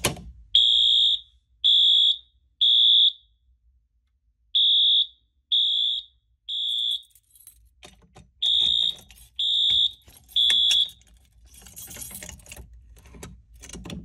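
Fire alarm sounder beeping a high tone in the temporal-3 evacuation pattern: three half-second beeps about a second apart, then a pause, three sets in all. After the last set come clicks and rattling as the pull station is reset with a key.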